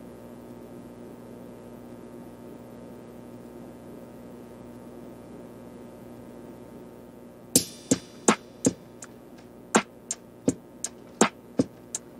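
Background music: a quiet held low drone, then about seven and a half seconds in a sparse electronic beat of sharp clicking hits starts and keeps going.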